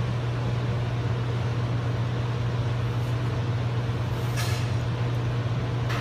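Steady low hum with an even hiss from running workshop equipment, and a brief light scrape about four seconds in as a steel disc is handled on the stack.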